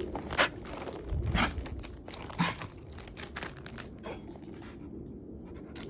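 A dog hacking and coughing, clearing her throat with sharp hacks about a second apart that fade after a few seconds. The owner fears a piece of small kibble or something sniffed up may be stuck in her throat or snout.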